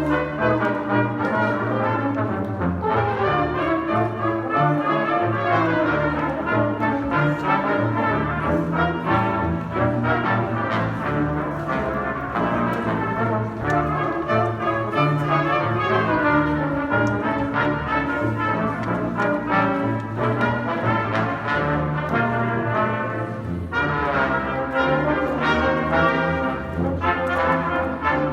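A middle school concert band playing a piece, with the brass section, trumpets and trombones, leading the sound and carrying a moving melody without a break.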